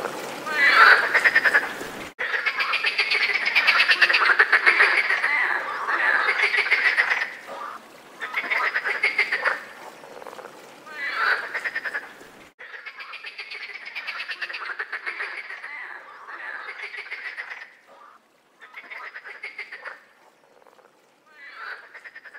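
A chorus of European frogs croaking in the mating season, in overlapping bouts of rapid pulsed croaks lasting one to a few seconds each. The sound changes abruptly about two seconds in and again about halfway through, and thins out near the end.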